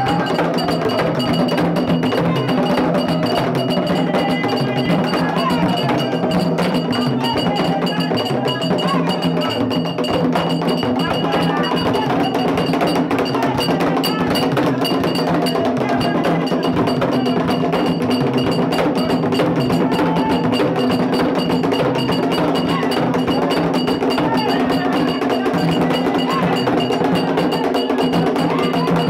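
Ceremonial drumming with a metal bell struck in a steady, ringing beat over hand drums, and a group singing along. The music carries on without a break throughout.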